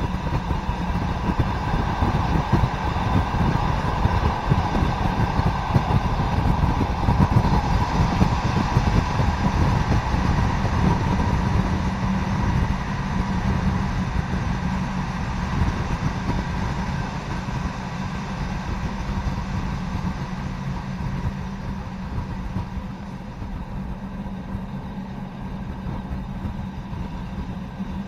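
FS ALn 668 diesel railcar under way: the diesel engine drones steadily over wheel and rail noise, getting somewhat quieter in the second half.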